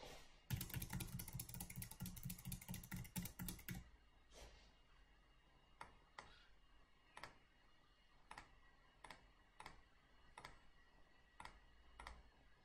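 Faint computer clicking: a quick run of clicks for about three seconds, then single mouse clicks every half second to a second as answers are picked from drop-down lists.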